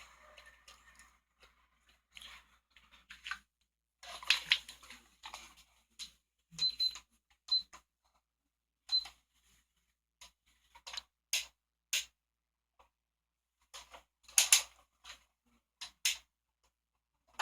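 Quiet scattered clicks and rustles of someone moving stealthily and handling things, with a few short high electronic beeps around the middle. There is no steady fan noise yet.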